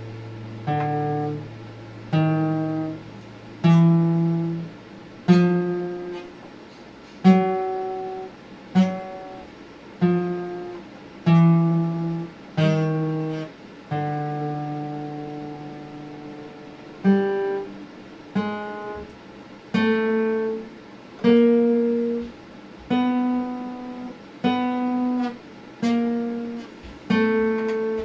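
Acoustic guitar played slowly: one chord struck roughly every second and left to ring and fade, with one chord held longer about halfway through.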